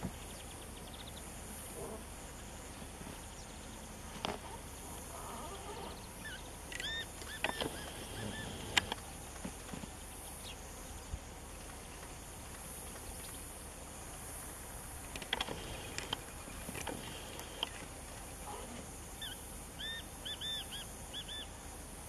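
Steady outdoor hiss with a small bird chirping in short quick runs of arched notes, about a third of the way in and again near the end. A few sharp taps or small splashes are scattered through it.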